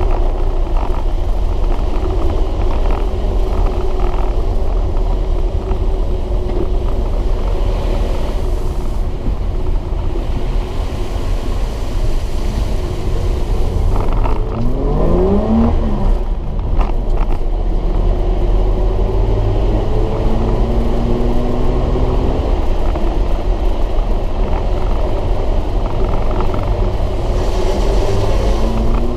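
Nissan Patrol Y60's swapped-in TB48 4.8-litre straight-six, fitted with headers, running under way and heard from inside the cabin, with a steady low rumble. About halfway through, the revs climb sharply and drop back.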